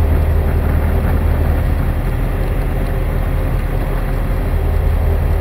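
Super Dimona motor glider's engine and propeller running steadily in flight, heard from inside the cockpit as a loud, even low drone with airflow noise over it.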